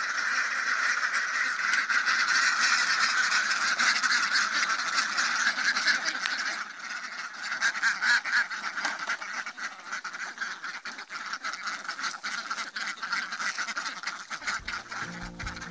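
A flock of farm waterfowl calling over one another in a continuous, busy din. Music comes in near the end.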